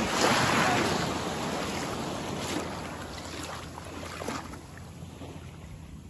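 A small sea wave washes up over the shallow water at the shoreline with a foamy hiss. It is loudest in the first second and then fades as the wash spreads out and settles.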